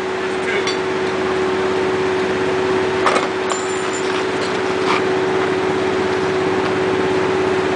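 A steady mechanical hum holding one even tone, with a couple of brief clicks about three and five seconds in.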